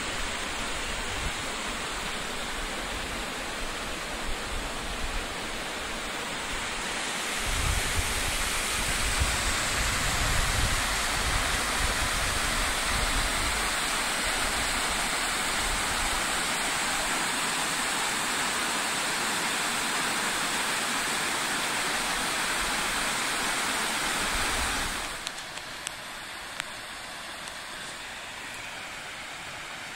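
Steady rush of a waterfall, with low rumbles for a few seconds about eight seconds in. Five seconds from the end the rush suddenly drops to a quieter level.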